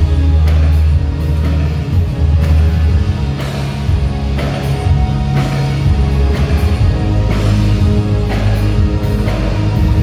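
A new wave band playing live: bass guitar, keyboards and electric guitar over drums, with a drum hit about once a second.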